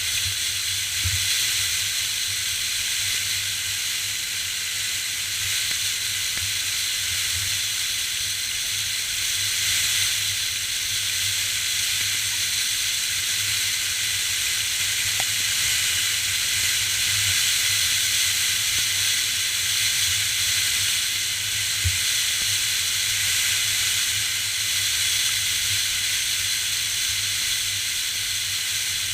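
Wind-blown sand hissing steadily across a dune, with gusts buffeting the GoPro's microphone as a fluttering low rumble underneath.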